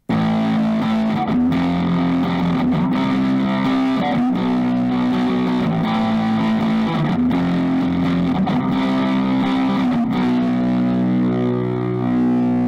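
Intro music: a rock track led by distorted electric guitar playing held chords.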